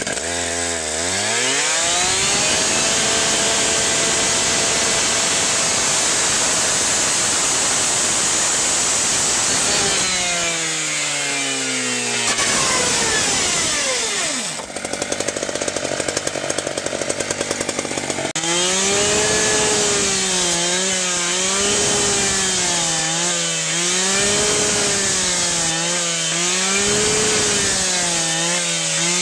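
Two-stroke rescue cut-off saw fitted with a Bullet Blade, revving up and cutting into a car door's hardened-steel Nader pin with a steady high whine and a grinding hiss. About 18 seconds in, the sound changes abruptly to the saw cutting through steel plate, its engine pitch rising and falling every second or so as the blade loads and frees.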